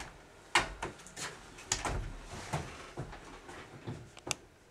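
Footsteps on a wooden deck, irregular steps about every half second, with a sharp click near the end.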